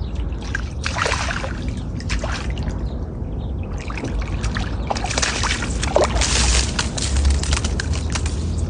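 Water splashing and sloshing in uneven bursts, about a second in and again from about five to seven seconds in, over a steady low rumble.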